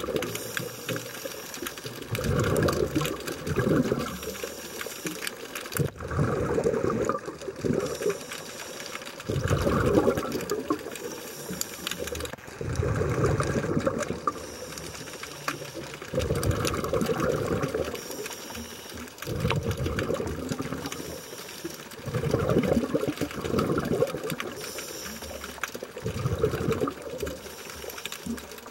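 Scuba diver breathing through a regulator, heard underwater: a rush of exhaled bubbles about every three seconds, each alternating with a short hissing inhale.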